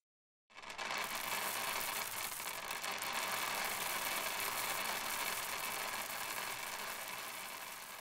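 Many plastic ball-pit balls pouring and tumbling together in a continuous clattering rattle. It starts about half a second in and fades out near the end.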